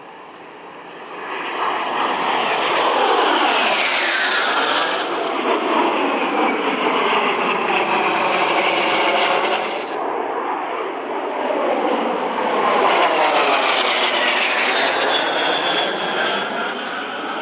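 Two Aero L-39 Albatros jet trainers flying by in close formation, their jet engines running with a whine that sweeps down in pitch as they pass. The sound swells about a second in, eases around ten seconds in, then builds again with a second downward sweep.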